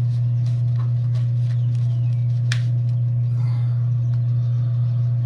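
Steady low hum, with light clicks and one sharper snap about two and a half seconds in, from pruning shears snipping open quail eggshells.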